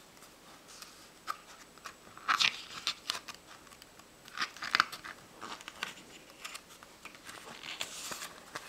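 Glossy pages of a picture book being flipped through by hand: several crisp paper rustles and snaps, the loudest about two and a half and five seconds in.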